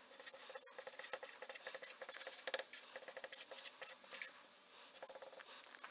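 Faint, irregular run of small clicks and ticks, thickest in the middle.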